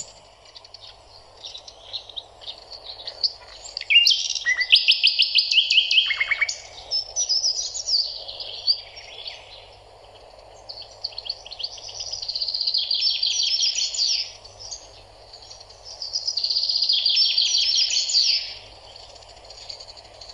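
Songbirds singing: phrases of fast repeated chirps and trills, loudest a few seconds in, again about twelve seconds in and near seventeen seconds, over a faint steady background noise.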